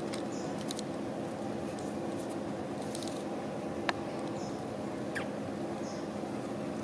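Steady low background hum with a few faint clicks scattered through it, and one sharper click a little before the four-second mark.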